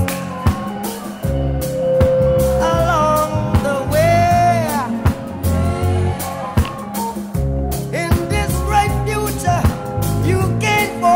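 Background music: a song with a sung vocal line over guitar, bass and drums with a steady beat.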